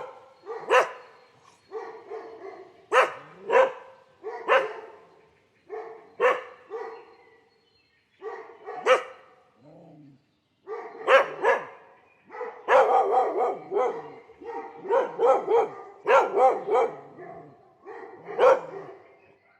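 A dog barking repeatedly: single barks and short runs of two or three. There is a pause of about two seconds near the middle, then a quicker run of barks.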